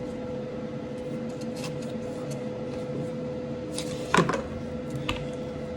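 Light handling noises from unboxing a small power adapter's packaging: scattered clicks and taps, with one louder crinkle or scrape about four seconds in, over a steady background hum.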